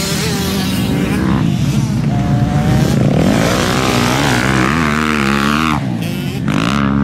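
An engine running, its pitch rising and falling repeatedly, with a brief drop near the end.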